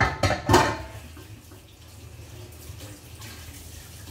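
Kitchen tap running into the sink while hands are washed under it, with a few loud knocks and splashes in the first second.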